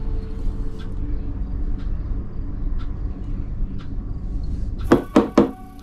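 Ground coffee being poured from a small glass jar into a ceramic cup, with a few faint light ticks over a steady low rumble. Near the end come three sharp knocks in quick succession.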